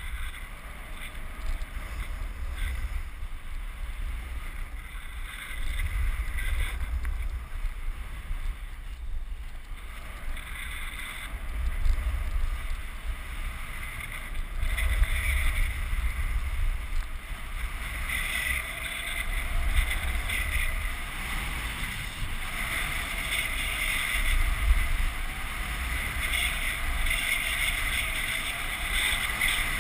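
Wind buffeting the microphone of a body-mounted action camera, with a rough scraping hiss from a snowboard sliding and carving over packed snow. The scraping grows stronger and comes in surges through the second half.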